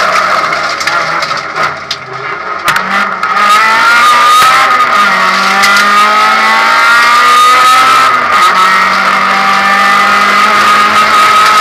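Honda Civic rally car's engine heard from inside the cabin under hard acceleration: it eases off about two seconds in, then climbs steadily in pitch, drops with an upshift a little after eight seconds and climbs again.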